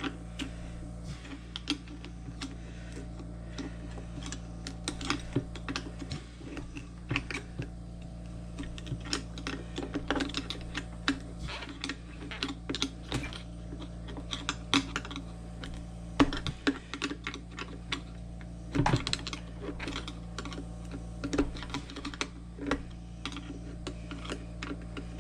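Irregular light clicks and taps of a guide pin being slid and seated into the cross-slide carriage of a Framon key-cutting machine, over a steady low hum.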